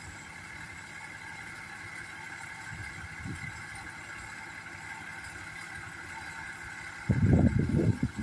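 Vehicle engine idling with a steady hum. About seven seconds in, a loud low rumble lasts about a second.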